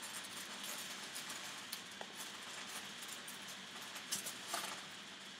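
Gas stove burner hissing steadily under a saucepan of pickling brine heating toward the boil, with a few light clicks and taps.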